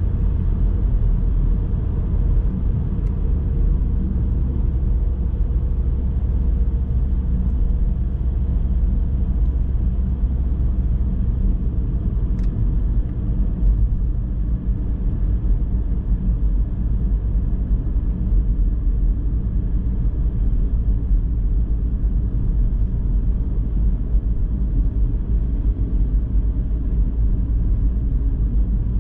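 Car driving along a road: steady low rumble of tyre and engine noise.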